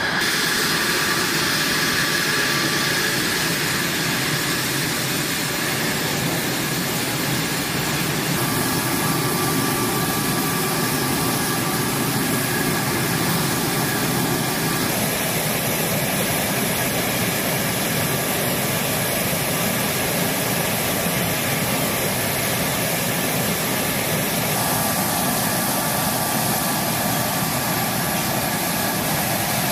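F-16 fighter jet's turbofan engine idling steadily with a high whine and rushing hiss, running during hot-pit refuelling.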